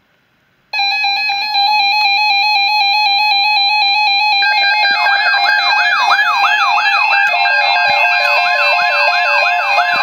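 Several NOAA weather alert radios, Midland and Reecom models, sounding their alarms together, set off by a tornado watch alert. A loud stepped beeping starts about a second in, and more alarms join around five seconds in, one with a falling siren-like sweep repeating a little over twice a second.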